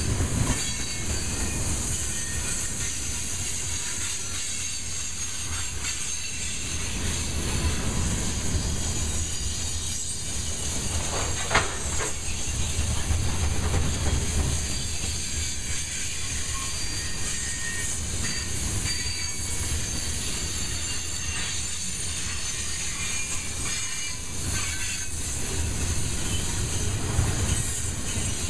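Loaded covered hopper cars of a freight grain train rolling past close by: a steady rumble of steel wheels on rail with a high hiss over it. There is one sharp clank a little before halfway through.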